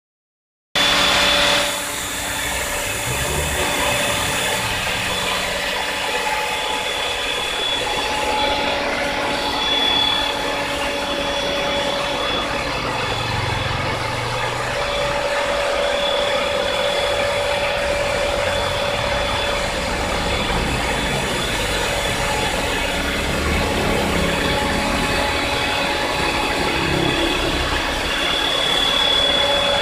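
CNC tile-cutting machine running and cutting tile, a steady mechanical noise with a constant whine, starting about a second in.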